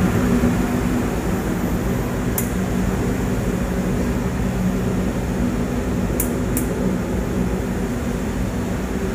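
Powder coating booth running: a steady fan-like whir with a low hum, from the booth's extraction fan and the spray gun's air. A few faint, short high ticks sound about two and a half seconds in and twice a little after six seconds.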